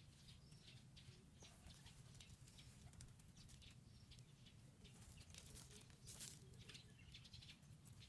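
Near silence, with faint scattered ticks and rustles from hands pressing soil around seedlings in plastic pots.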